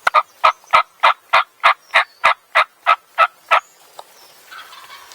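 A run of about a dozen turkey yelps, evenly spaced at about three a second, then stopping about three and a half seconds in.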